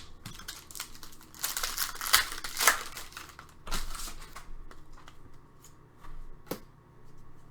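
Trading card pack wrappers crinkling and tearing in a few rustling bursts, with light clicks of cards being handled.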